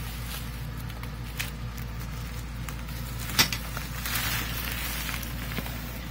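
Bubble wrap crinkling and foam packing peanuts rustling as bubble-wrapped parts are lifted out of a shipping box, loudest a little past the middle, with one sharp click about three and a half seconds in. A steady low hum runs underneath.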